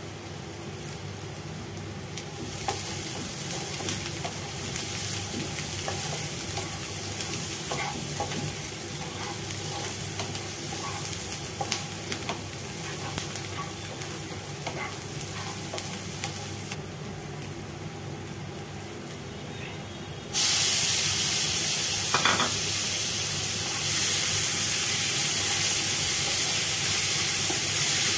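Chopped onion and green chilli sizzling in hot oil in a nonstick frying pan, with a spatula scraping as it stirs. About two-thirds of the way through, the sizzle jumps suddenly louder and hissier, and chopped tomatoes are in the pan by the end.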